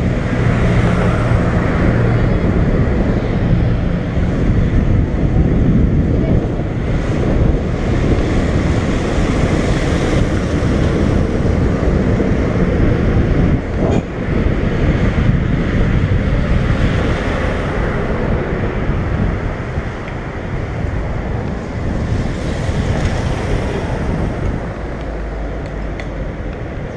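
Wind rumbling over a bicycle-mounted camera's microphone while riding at speed, mixed with the noise of road traffic passing close by. A car engine hums briefly in the first couple of seconds.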